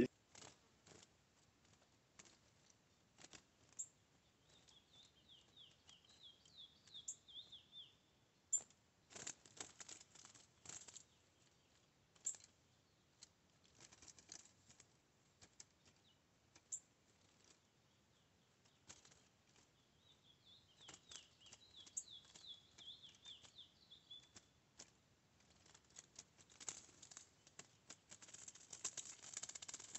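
Small birds hopping and fluttering on and in a wooden trap cage, giving scattered soft clicks and taps that grow busier near the end. Twice, a run of fast, high twittering notes lasts about three seconds.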